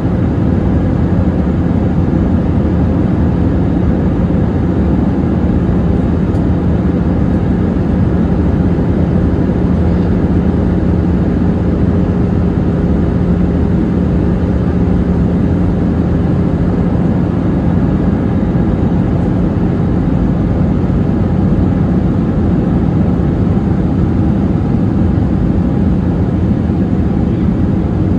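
Steady cabin noise inside an Airbus A320-200 during descent: the constant rush of airflow and the engines, with an even low hum that does not change.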